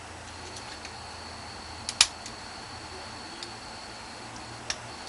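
Lock pick working the pin stack of a five-pin shrouded padlock: scattered faint clicks, with one sharp click about two seconds in and another near the end.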